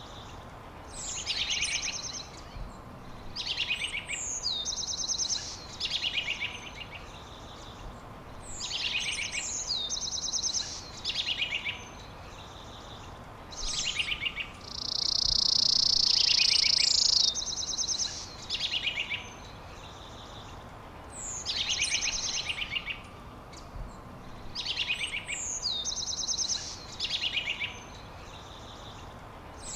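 Songbirds singing in repeated short, rapid trilled phrases every couple of seconds, some opening with a high note that sweeps down. Around the middle a steady high buzz lasts about two seconds and is the loudest sound, over a constant background hiss.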